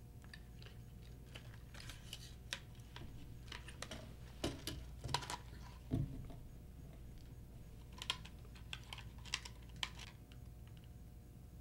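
Faint, scattered clicks and taps of small plastic parts being handled and fitted as rotor blades and linkages go back onto a small RC helicopter, with a soft knock about six seconds in.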